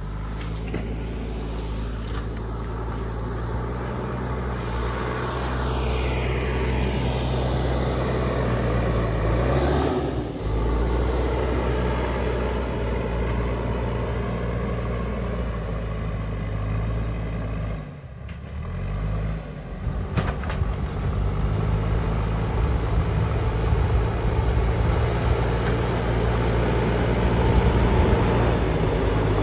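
A motor vehicle's engine running steadily. It drops briefly twice, about a third and about two-thirds of the way through, and each time the engine note climbs again afterwards.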